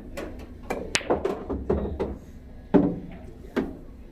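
Sharp clicks of pool cue and balls: a crisp cue-ball strike about a second in, then louder clacks of balls striking near three seconds and again shortly after, over faint background chatter.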